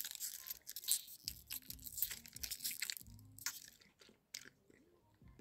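Close-up mouth sounds of sucking and chewing from a spouted jelly drink pouch, with the plastic crinkling: a dense run of small clicks and crackles for about four seconds, then only a few faint clicks.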